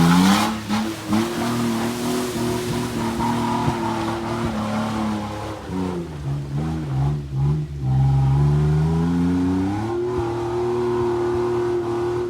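An off-road 4x4's engine revving hard under load on a muddy hill climb: the revs hold high, drop for a couple of seconds past the middle, then climb back up and hold.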